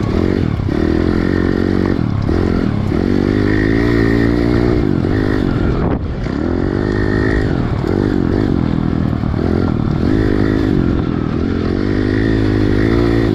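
Piranha pit bike's four-stroke engine heard from the rider's seat, revving up and falling back over and over as the throttle is worked around the track, with a brief throttle cut about six seconds in.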